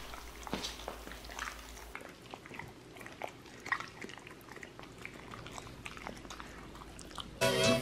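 Siberian husky licking and mouthing a piece of raw turkey off a plate, with faint scattered wet smacks and clicks. Music starts near the end.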